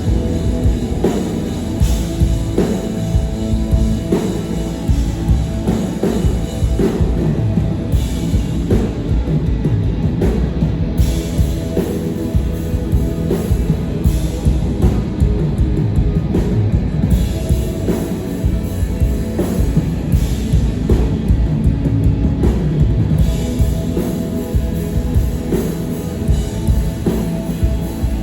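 Live rock band playing loud, with a drum kit driving a steady beat over bass and guitar.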